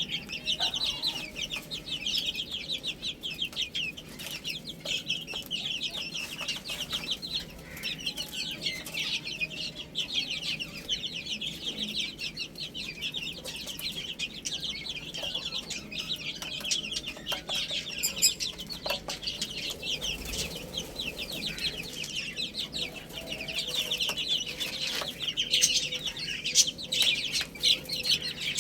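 A group of baby chicks peeping continuously in many overlapping short, high chirps.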